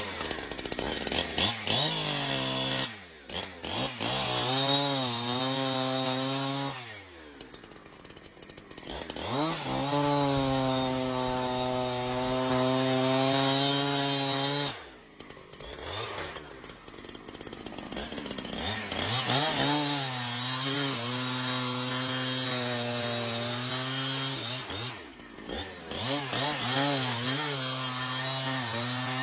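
Chainsaw engine running at high revs while cutting wood. The pitch holds steady for several seconds at a time, falls away several times, once suddenly, and climbs back up.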